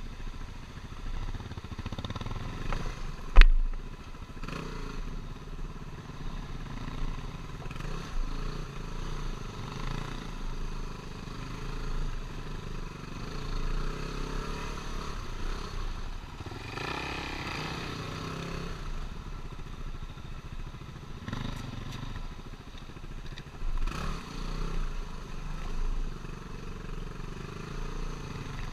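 Single-cylinder dual-sport motorcycle engine running on a dirt trail, its note rising and falling with the throttle. One sharp knock, the loudest sound, about three and a half seconds in.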